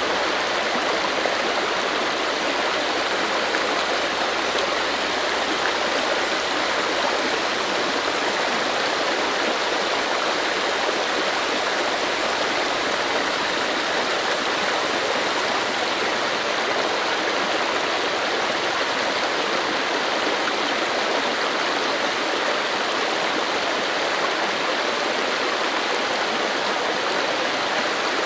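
Steady rush of running water, like a flowing stream: an even, unbroken wash that does not change.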